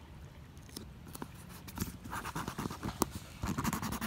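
Fingers and knuckles rubbing a clear adhesive repair patch down onto an inflatable kayak's tube to press out air bubbles. A few light taps and scratches come first, then rapid scratchy rubbing starts about two seconds in and grows dense and quick near the end.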